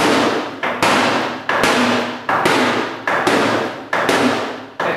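Hammer blows on the sheet metal of a Toyota Land Cruiser fender, pounding out a dent against a backing tool held behind the panel. About seven strikes come at a steady pace of a little over one a second, each ringing briefly.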